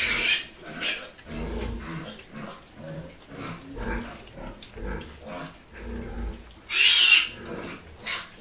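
A litter of young piglets grunting as they crowd in to be fed, with a loud shrill squeal right at the start and another about seven seconds in.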